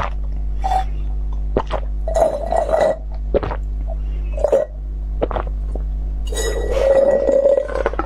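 Drink slurped through a plastic straw: two longer gurgling sucks, the second about six seconds in, with sharp clicks and clinks between them, over a steady low hum.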